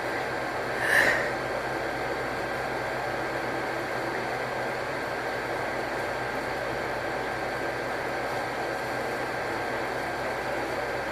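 Steady background hiss, with one short, sharp breath about a second in: an inhale of a sneeze build-up that does not come.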